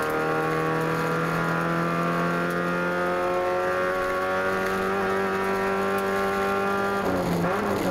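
Race car engine heard from inside the cockpit, pulling hard in one gear with its pitch climbing slowly, then briefly dropping and picking up again about seven seconds in at a gear change.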